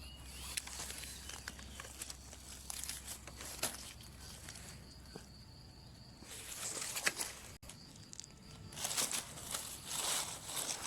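Footsteps and rustling through leaf litter and undergrowth, with scattered light snaps. The rustling gets louder in two spells in the second half.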